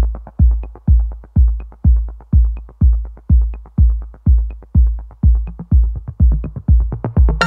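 Electronic background music with a steady, deep kick-drum beat, about two beats a second, and light ticks between the beats. A cymbal crash and synth notes come in at the very end.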